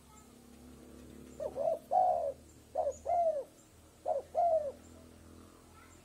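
Spotted dove cooing: three phrases a little over a second apart, each a short note followed by a longer, arching coo.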